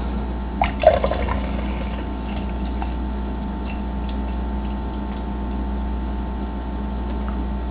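Fruit punch juice pouring steadily from a snipped-open juice box into a tumbler.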